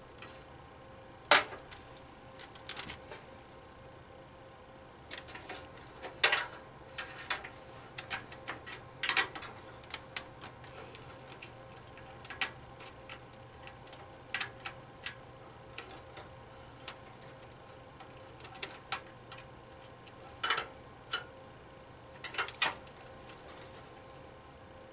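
Scattered clicks and taps of hands working inside a desktop PC case, routing and plugging in the hard drive's SATA power and data cables. The sharpest click comes about a second in.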